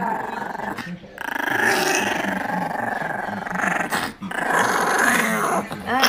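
A small white fluffy dog growling in long, continuous rumbles, breaking off briefly about a second in and again around four seconds in.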